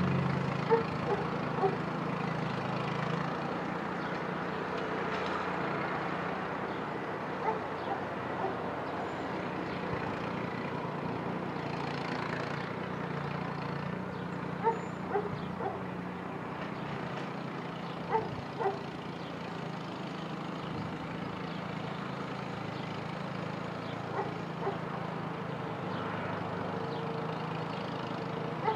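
A small farm tractor's engine running steadily as it tills soil with a rear-mounted rotary tiller. A dog barks over it in short runs of two or three barks every several seconds.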